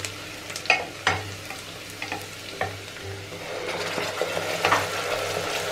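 Sliced onions frying and sizzling in oil in a pressure cooker while a wooden spatula stirs them, with a few sharp scrapes and knocks against the pot. Near the end, ground masala paste is scraped in from a steel bowl and the sizzle grows louder.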